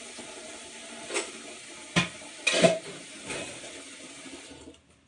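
Kitchen tap running into a sink, with several sharp clanks of kitchenware about one, two and two and a half seconds in; the water shuts off just before the end.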